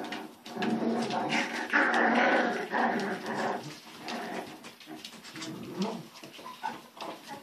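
Miniature beagle puppies whining and squealing as they play together, loudest in the first half and fading to scattered smaller cries after about three and a half seconds.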